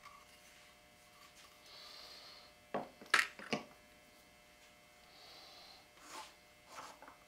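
Light clicks and knocks of rifle parts being handled and set down at a gun vise, the loudest three coming quickly one after another about three seconds in, with two more later. Two soft breaths can be heard between them.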